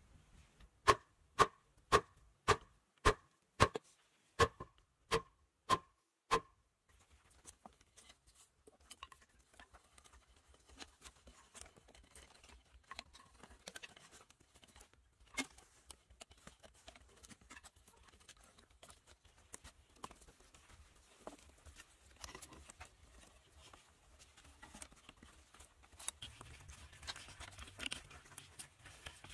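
A wooden stick knocking a wooden fence stake into the ground: about eleven sharp, ringing wood-on-wood knocks, roughly two a second, stopping about six seconds in. After that come faint rustles and small scratches of cord being wound and tied around a stake and crossbar.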